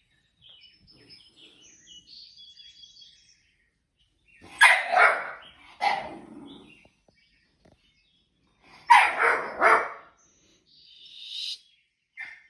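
Dog barking: a couple of loud barks about a third of the way in, then a quick run of barks about three quarters of the way through, with faint high chirps before them.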